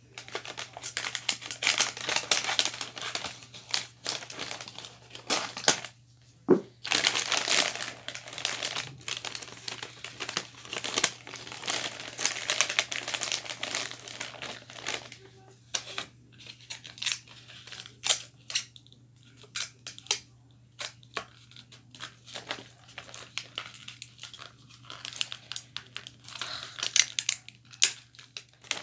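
Wrapping paper crinkling and rustling as it is handled and folded around a present, in irregular bursts with short pauses and a few sharp crackles.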